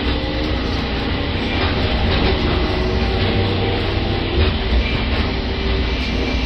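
Airport people-mover train running, heard from inside the car: a steady rumble of the moving train with faint steady tones over it.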